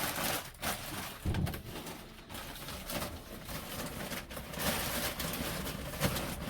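A pigeon cooing in the background, over intermittent close rustling and scraping.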